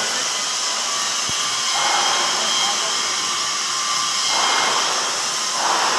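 Submerged arc welding machine running a weld at about 550 amps: a steady blower-like hiss and hum with a thin whine, swelling in noise every second or two.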